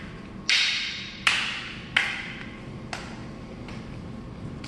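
Rattan fighting sticks clacking against each other in a double-stick drill: four sharp wooden clacks in about three seconds, the last one softer. These are strikes landed on the half beat, between the partner's strikes.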